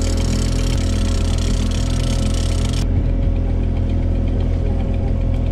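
Mercury outboard motor running steadily at low trolling speed, a constant even engine drone. A hiss over it drops away a little before halfway through.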